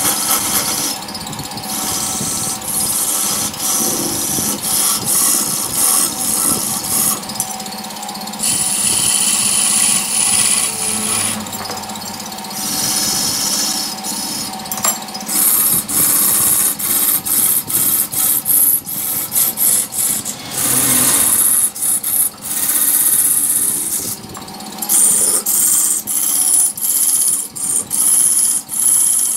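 Hand-held turning tool cutting a large wood blank spinning on a lathe: a hissing, scraping cut that comes and goes in repeated strokes, longer at first and short and choppy in the second half. A low steady hum of the lathe's drive runs underneath.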